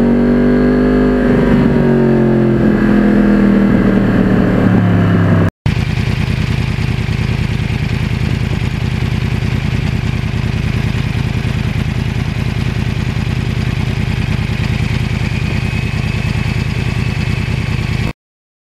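2009 Yamaha R1 crossplane inline-four with a custom carbon exhaust. It runs with its note falling steadily as the revs drop over about five seconds. After an abrupt cut it idles steadily until it cuts off near the end.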